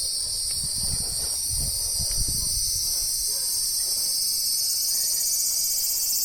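Cicadas calling in a steady, continuous high-pitched chorus, with a few faint low rumbles underneath.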